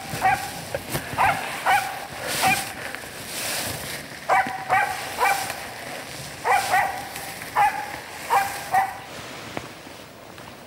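A tree-barking hunting dog barks in quick clusters of two or three sharp barks, stopping about nine seconds in. It is barking at a squirrel up a tree, a thin, half-hearted bark compared with its bark at game birds.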